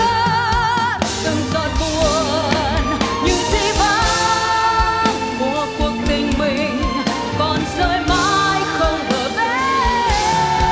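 Live pop ballad: a woman singing long held notes with wide vibrato, backed by a band with drum kit and strings.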